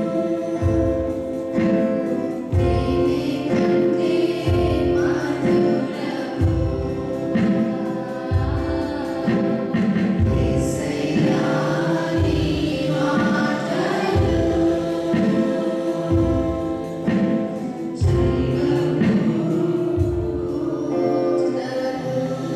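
Gospel worship music: group singing over held instrumental chords, with a steady bass beat about every second and a half.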